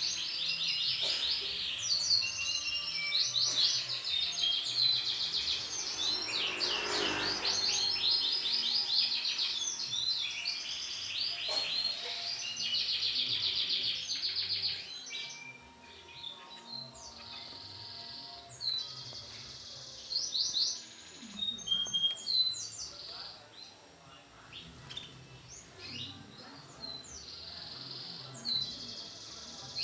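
Canaries chirping and trilling in quick runs of high notes, dense at first and thinning to scattered calls about halfway through.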